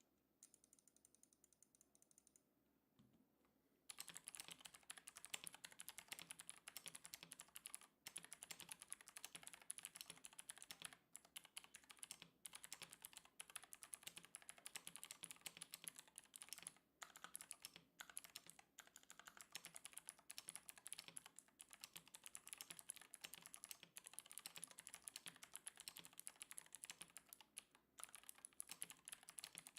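Semi-custom mechanical keyboard with Outemu Gold switches being typed on quickly and continuously. A dense stream of key clicks starts about four seconds in, with a few brief pauses.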